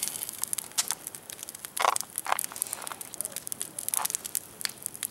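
Campfire of logs and dry branches crackling, with many small sharp snaps and a few louder pops about two seconds in and near four seconds.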